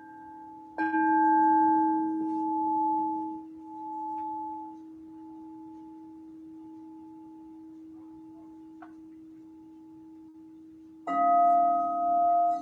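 Crystal singing bowls ringing. A low-pitched bowl sounds about a second in, swells and fades in slow waves, then rings on steadily. A second, higher-pitched bowl comes in sharply near the end over the first.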